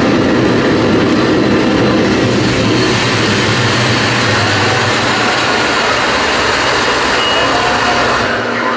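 Loud, dense wall of distorted electronic noise from a live power electronics / industrial noise set, with a low rumble underneath that thins out in the second half. Near the end the deepest rumble drops away.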